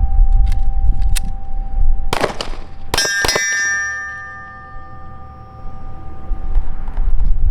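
A quick string of pistol shots about two to three and a half seconds in, each hit setting AR500 steel targets ringing with clear metallic tones that fade slowly. Wind rumbles on the microphone at the start and again near the end.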